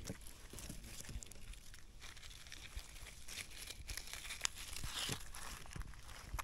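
Dry forest leaf litter and undergrowth rustling and crackling, with scattered small snaps throughout.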